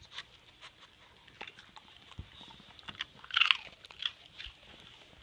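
Peanut butter pretzels being crunched and chewed: a run of small crisp crunches, with one loud crunch about three and a half seconds in.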